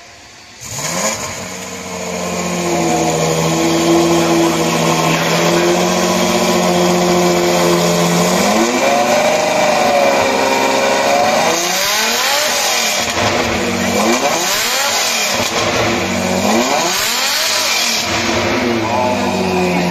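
Lamborghini Diablo V12 engine starting about a second in and settling into a steady fast idle. After about eight seconds it is revved in a run of throttle blips, each rising and falling in pitch.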